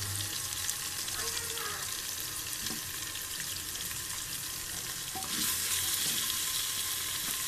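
Spices frying in oil in a pressure cooker pot, sizzling steadily while being stirred with a wooden spatula; the sizzle grows louder about five seconds in.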